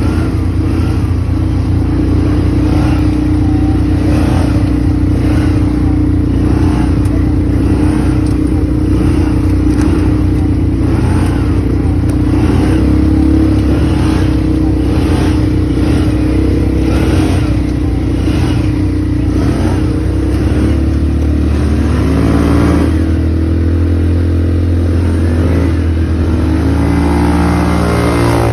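ATV engine running steadily, with a regular clatter. The engine speed rises and falls twice in the last third.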